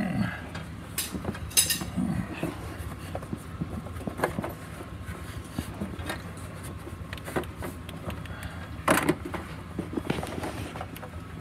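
Rubber and plastic handling noises as a ribbed rubber intake boot is worked back onto a plastic air-filter box. A few sharp clicks and knocks come through, the loudest about nine seconds in, over a steady low hum.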